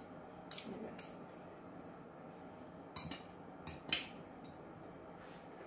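A metal knife and fork clinking against a ceramic salad dish in a handful of light, sharp taps: two close to the start, then a quick cluster around three to four seconds in, the last of them the loudest.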